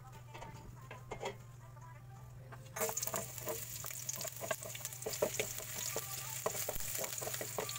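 Hot cooking oil in a stainless steel pan, faint at first; chopped onion and garlic go in about three seconds in and start to sizzle steadily. A wooden spatula stirs them, with light clicks and scrapes against the pan.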